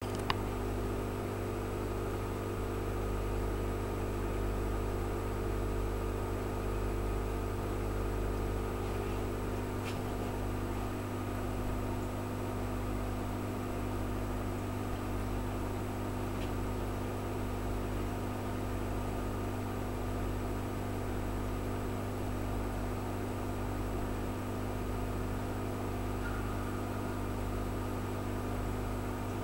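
Aquarium pump running with a steady, even electric hum. There is one faint click right at the start.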